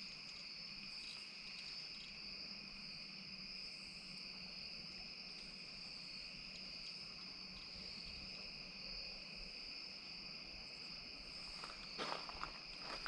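Evening insect chorus, crickets or similar, a steady high-pitched trilling drone. A few soft clicks come near the end.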